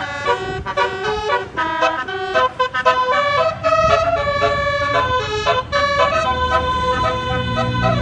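Indonesian bus 'telolet basuri' 24-note musical air horn playing a fast melody, its notes stepping up and down several times a second. A low rumble runs underneath from about halfway.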